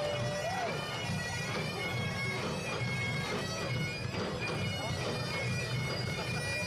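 Bagpipes playing a tune over their steady drones, with a continuous low rumble underneath.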